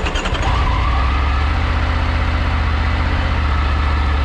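An off-road vehicle's engine starts up and settles into a steady idle.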